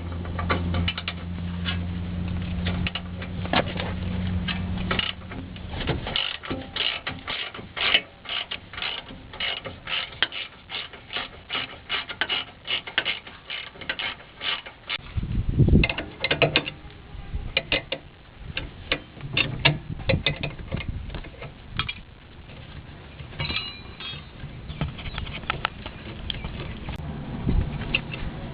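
Ratchet wrench clicking in quick, regular runs as a nut is turned on the front suspension of a Nissan D22 pickup, with a heavy knock about halfway through. A steady low hum comes first and stops about five seconds in.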